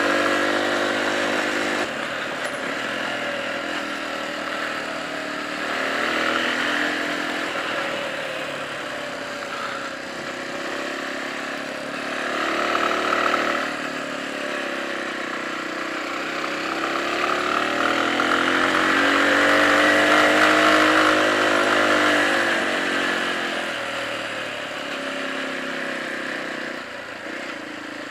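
Small 9-horsepower motorcycle engine running under way, its note rising and falling as the rider speeds up and eases off. It is loudest and highest-revving about two-thirds of the way through.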